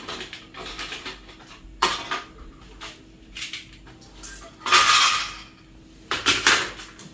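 Plastic parts of an inkjet printer being handled and fitted by hand: scattered clicks and knocks, with a louder scraping rattle about five seconds in.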